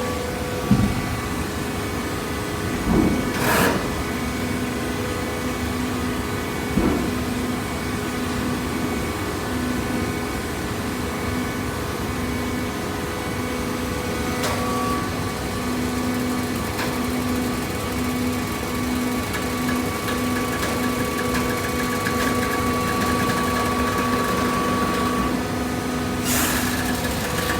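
Hydraulic cardboard baler running, its motor and pump giving a steady hum, with a few clanks and knocks along the way.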